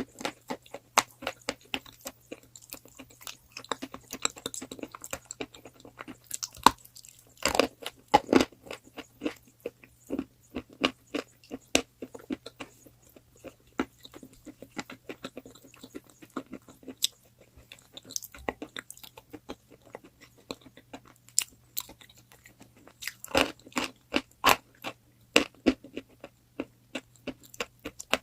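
Crunchy chalk being bitten and chewed close to the microphone: a dense, irregular run of sharp crunches and snaps, with louder clusters of bites about a quarter of the way in and again near the end. A faint steady low hum runs underneath.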